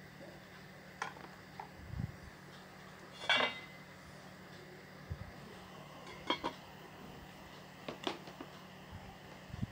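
Enamelled cooking pot, its metal ladle and lid clinking and knocking: a handful of separate knocks, the loudest a brief ringing clatter about three seconds in, then a double clink as the lid goes onto the pot.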